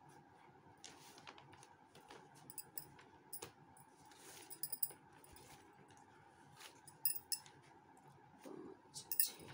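Faint scattered clicks and light rustling of small objects being handled, over a faint steady hum.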